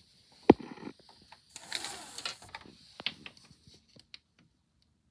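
Handling noise from a camera being moved and set in place: a sharp click about half a second in, about a second of rustling and scraping, then another click and a few small ticks.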